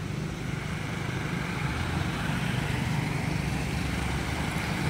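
Steady low engine rumble of a motor vehicle running, growing slightly louder about two seconds in.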